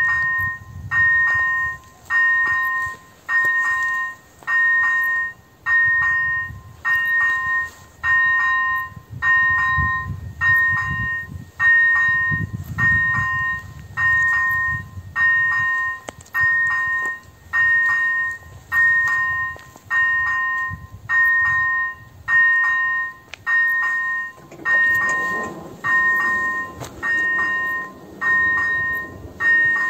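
The electronic bell (Elektronický 01) of an AŽD 97 level-crossing warning signal ringing about once a second, each stroke a two-note ding that fades: the crossing's warning that a train is approaching. About 25 seconds in, a low hum joins as the crossing barriers swing down.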